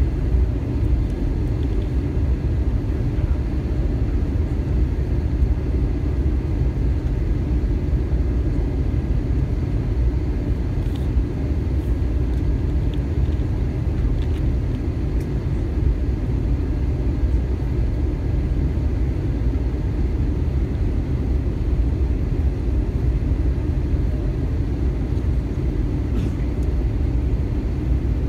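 Airbus A320 cabin noise in flight: a steady low rumble of engines and airflow heard from a window seat over the wing.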